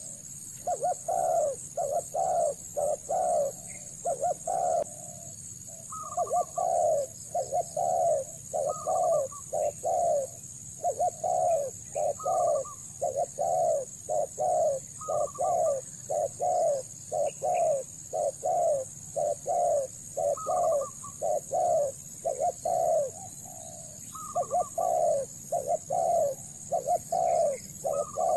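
Spotted dove cooing: runs of low coos, about two a second, each run led by a short higher note and repeating every three seconds or so. A steady high-pitched hiss runs underneath.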